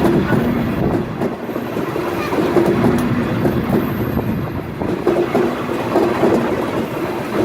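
Express train passing close by: a loud, steady rumble of wheels on rails, with a repeated clickety-clack as the carriages' wheels cross the rail joints.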